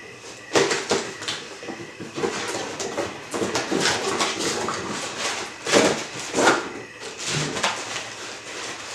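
Cardboard figure box being opened by hand: a series of rustles, scrapes and crinkles as the flap is lifted and the cardboard insert is slid out, loudest around the middle.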